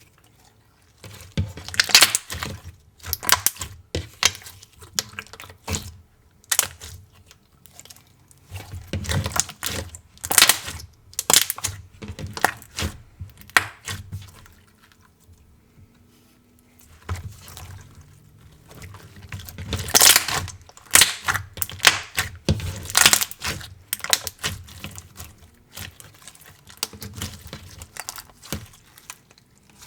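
Clear slime being squeezed, pressed and stretched by hand, making runs of sticky clicks and pops with short pauses between handlings.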